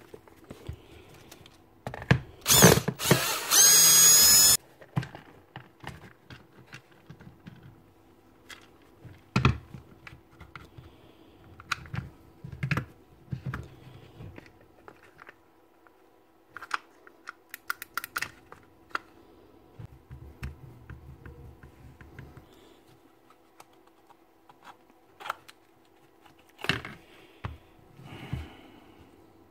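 A small power-tool motor whirs loudly for about two seconds, a couple of seconds in, its pitch rising as it runs. The rest is scattered clicks and knocks of plastic and metal parts being handled as the drill's motor housing is taken apart.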